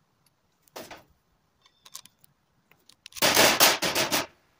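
Metal clicks and clatter of a steel angle bracket and water-pump pliers being worked while the bracket is bent by hand: a sharp knock just under a second in, and a loud rattling clatter lasting about a second near the end.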